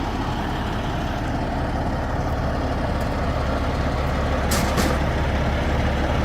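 Freightliner Classic semi truck's diesel engine running with a steady low drone, with two short hisses of air about four and a half seconds in.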